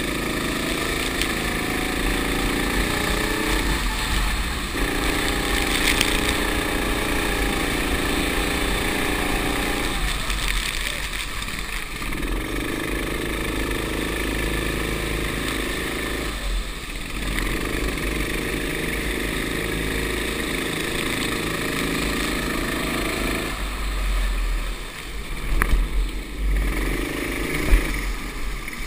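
Rental go-kart engine heard from on board, climbing in pitch under full throttle along the straights and falling back about five times as the kart lifts off for corners. A steady hiss of wind and tyre spray off the wet track runs underneath.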